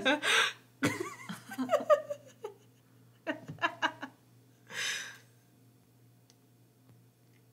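A woman laughing in a few bursts over the first four seconds, with a run of short giggles, then a breathy exhale about five seconds in.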